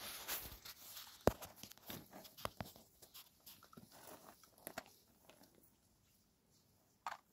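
Rocks being handled and knocked together at the foot of a metal gate, with footsteps scuffing and crunching on stony ground; scattered sharp knocks, the loudest about a second in, dying away after about five seconds.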